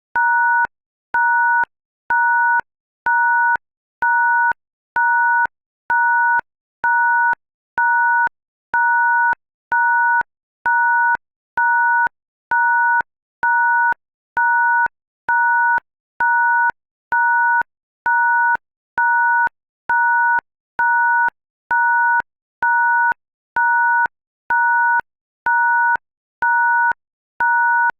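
A keypad's two-note tone beeping steadily about once a second in an even rhythm, imitating a bus or semi truck's backup alarm.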